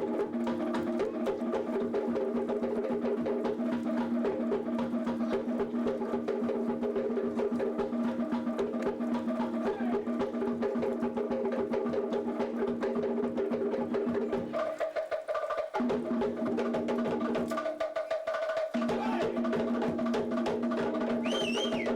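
Background music: sustained chords over a fast, rapping percussion rhythm. The lower notes drop out briefly twice in the second half.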